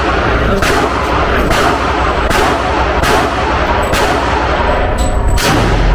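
Gunshots at a shooting range, single sharp reports coming roughly once a second over a loud, steady background din.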